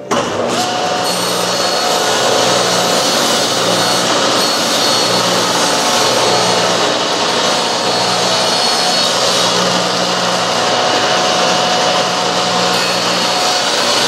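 Table saw running steadily, its blade cutting into the end of a wooden strip.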